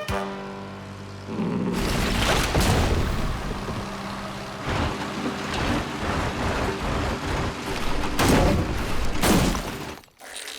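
Cartoon sound effects: a loud, sustained rumbling din with several booming crashes through it, dying away near the end.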